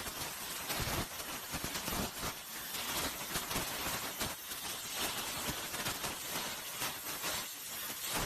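CNC plasma torch cutting steel plate: a steady crackling hiss of the plasma arc and spatter.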